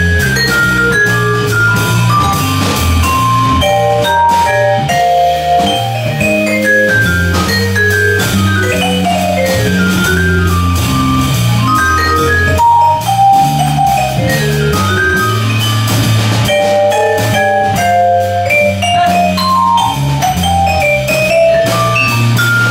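Live jazz waltz: a Yamaha vibraphone solos in quick runs of struck mallet notes over a low bass line and a drum kit with cymbals.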